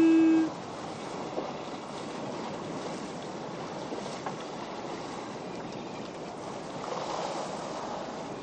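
A hand-worked foghorn's steady note cuts off about half a second in. It is followed by the steady rushing wash of the sea around a sailing ship under way.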